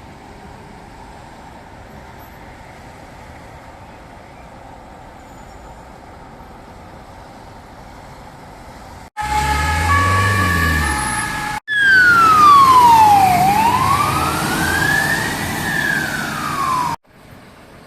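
Steady low background noise, then, about nine seconds in, an emergency vehicle siren starts loud and abrupt. First it sounds steady tones that change pitch in steps. Then it wails, gliding slowly down, up and down again, and cuts off suddenly near the end.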